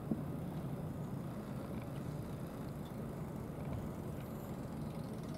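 Steady low background rumble, with a single short knock just after the start.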